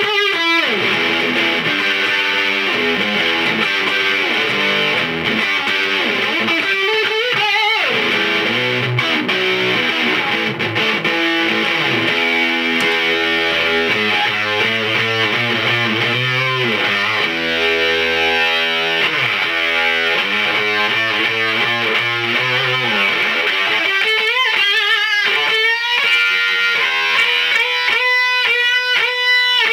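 Electric guitar played through a home-built Kitchen Electronix distortion pedal, the Ragemanium switched on, giving distorted chords and riffs with sustained notes. The pitch slides a few times.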